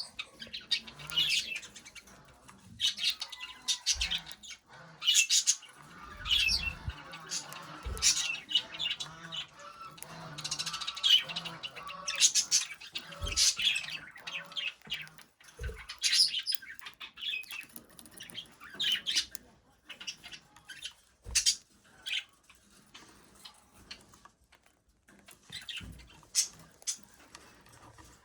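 Pet budgerigar chirping and squawking in many short, high calls, with a few short low thumps among them.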